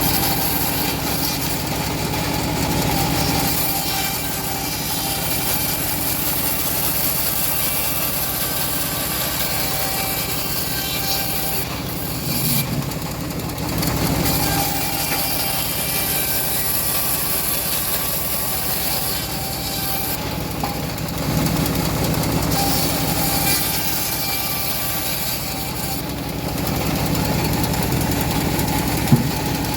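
Homemade bandsaw mill running and ripping through a teak log: a steady machine drone under a high cutting hiss. The hiss eases off briefly a couple of times, and there is a single sharp knock near the end.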